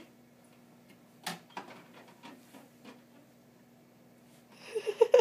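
A few light knocks and taps as a small plastic flap in a wooden door is pushed and bumped by hand, over a faint steady hum. Near the end, a short burst of giggling.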